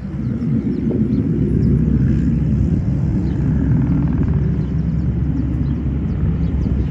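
C-17 Globemaster's four turbofan engines at takeoff power as the jet lifts off and climbs, a steady deep rumble.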